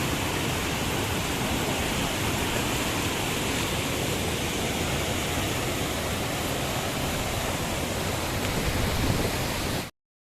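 Waterfall: a steady, dense rush of falling water that cuts off abruptly near the end.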